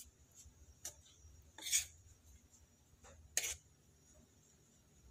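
Metal spoon scraping and clinking against a plate while tossing clam meat in dry flour: a handful of short, faint scrapes, the loudest about two seconds in and another about three and a half seconds in.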